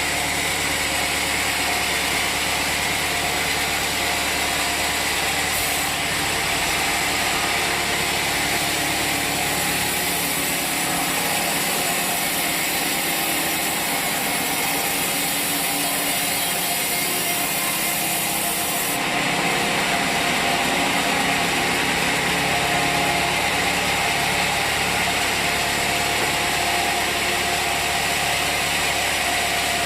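Log sawmill running steadily, its engine and saw going without a break. A brighter hissing layer joins about a third of the way in and cuts off sharply about two thirds through.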